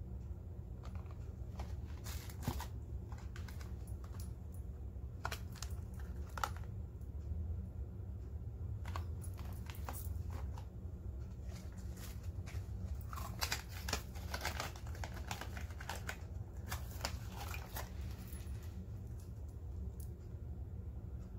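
Cosmetic boxes and plastic packaging being handled: scattered crinkles, rustles and small clicks, busiest a little past the middle. A steady low hum runs underneath.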